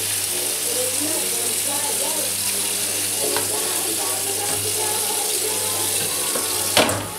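Kitchen tap running into a stainless-steel sink while dishes are washed by hand. About seven seconds in there is one sharp clatter.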